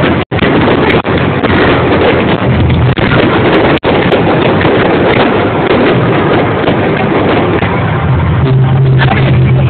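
Fireworks going off in a dense, continuous barrage, a loud unbroken crackling that overloads the recording, which drops out briefly three times.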